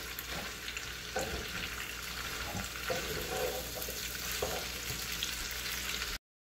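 Chicken pieces, green pepper and onion sizzling steadily in a nonstick pan over high heat, stirred with a wooden spatula that scrapes and taps lightly against the pan. The sound cuts off suddenly near the end.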